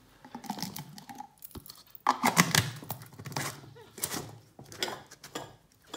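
Red plastic screw lid being pressed and twisted onto a large glass jar of packed lemons: a run of clicks, knocks and plastic-on-glass scraping, starting about two seconds in.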